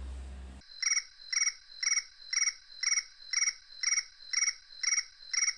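Mobile phone ringtone: an insect-like electronic chirp repeating evenly about twice a second, starting shortly after the beginning.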